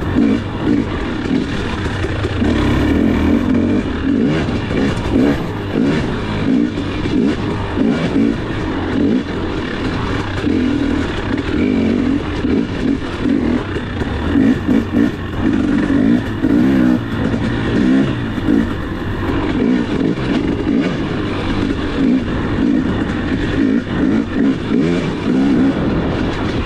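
KTM 250 dirt bike engine revving up and down continuously as the throttle is opened and closed, its pitch rising and falling every second or two.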